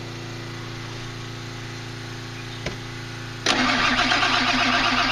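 A steady engine hum, then about three and a half seconds in a Ford Powerstroke diesel is cranked on its starter, a sudden loud rhythmic cranking that keeps going without the engine catching: a no-start being jump-started.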